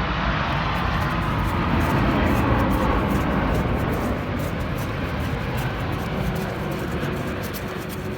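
A loud, steady rushing engine rumble going past, swelling about two to three seconds in and then slowly fading.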